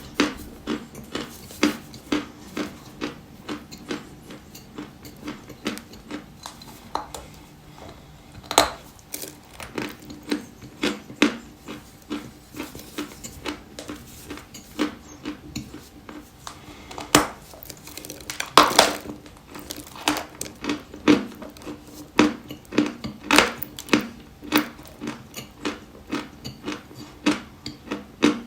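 Dry white chalk crunching close to the microphone: a steady run of sharp crunches, about two or three a second, with a few louder cracks among them.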